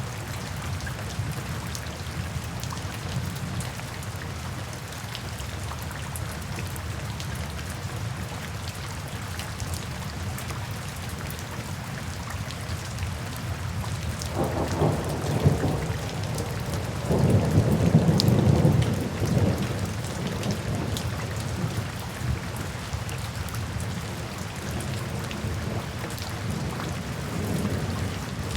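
Steady rain falling, with thunder rumbling in two swells about halfway through.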